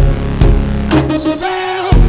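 Background electronic music with a heavy bass line and beat; the bass drops out briefly near the end under a rising hiss, then the beat comes back in.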